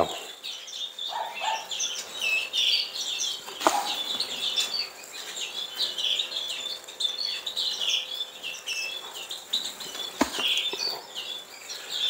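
Canaries and other aviary finches chirping and twittering: a busy run of short, high calls throughout, with two sharp clicks, one a few seconds in and one near the end.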